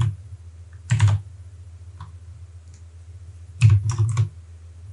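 Keys struck on a computer keyboard, typing in a six-digit code: a keystroke or two about a second in, then a quick run of three or four strokes near the end.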